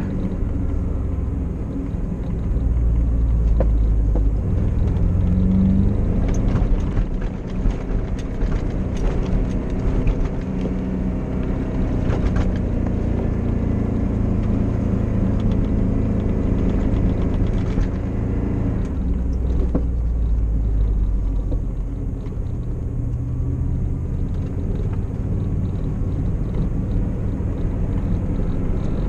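Off-road vehicle's engine running steadily while driving slowly along a snowy dirt track. A stretch of rattles and knocks runs through the middle.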